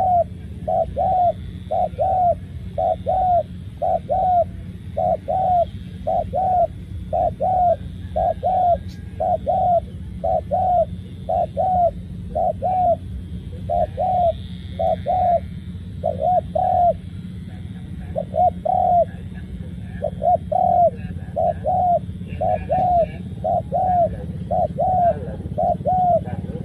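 Spotted dove giving its rolling 'rù' coo: short coos repeated about once a second, often in quick pairs, with one brief break partway through, over a steady low hum.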